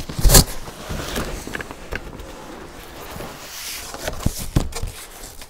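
A cardboard stroller box and its packaging being handled: a loud knock and rustle right at the start, then steady scraping and rustling with scattered clicks, and two sharper knocks a little after four seconds in.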